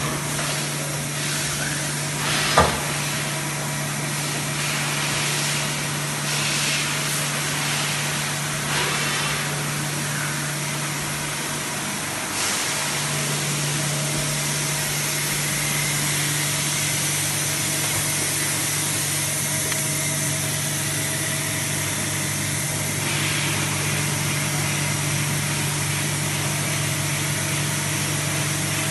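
1999 Okuma MX55 VA vertical machining center powered up and running, giving a steady low hum with a hiss over it. A single sharp knock comes about two and a half seconds in.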